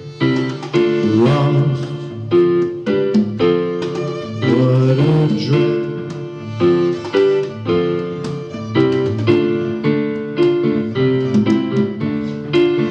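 Live band playing an instrumental break between sung lines, keyboard chords struck in a steady rhythm over bass and drums.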